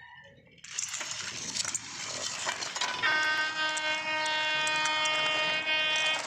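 Small stones and brick pieces clattering and clinking against plastic toy dump trucks. About three seconds in, a steady horn-like tone starts and holds without a break.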